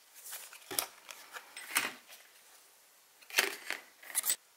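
Stiff plastic fender panel being handled and turned over, giving a handful of short scrapes and knocks, the loudest about three and a half seconds in.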